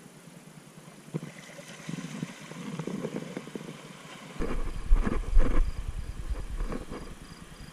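Handling noise from a camera carried over wet shoreline rocks: scattered small knocks, then from about halfway a low rumble with several sharp knocks and bumps.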